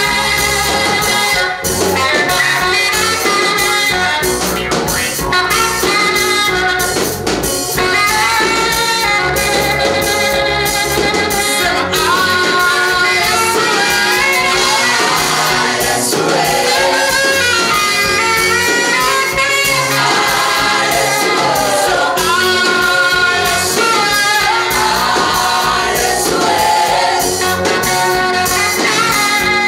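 Gospel choir singing in Swahili over a steady band accompaniment with a beat.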